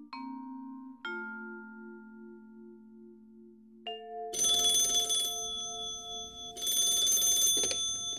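Soundtrack of pulsing, vibraphone-like mallet notes struck three times, ringing on between strikes. About four seconds in, a loud bell ringing with a rattling clatter, like an alarm clock, comes in two long bursts and cuts off sharply.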